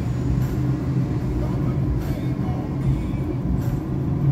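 Steady low rumble of engine and tyre noise heard from inside a moving car.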